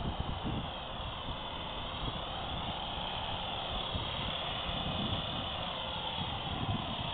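Radio-controlled model helicopter whining, its pitch rising and falling, with wind rumbling on the microphone.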